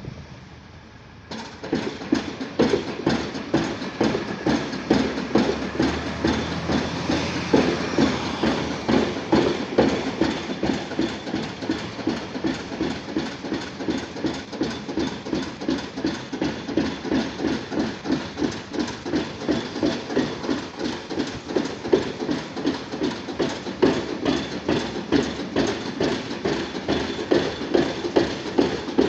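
Junttan PMX22 pile driving rig's hydraulic impact hammer striking a pile in a steady, even rhythm of sharp blows, starting abruptly about a second in.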